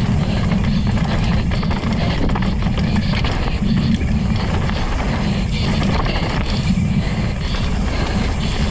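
Mountain bike riding fast down a dirt trail: a steady rumble of wind on the microphone and tyres on dirt, with frequent small rattles and knocks from the bike over the rough ground.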